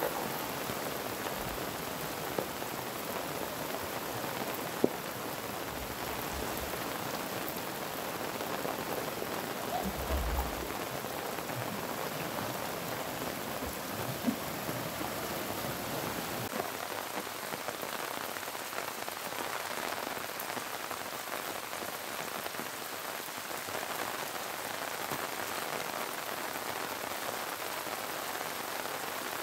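Steady noise of heavy rain and muddy flash-flood water rushing down an unpaved lane, with a couple of short sharp clicks.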